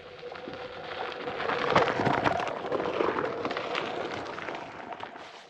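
Onewheel electric board rolling over gravel and dirt, its tyre crunching and crackling as it rides past and away. It builds to its loudest about two seconds in, then fades out.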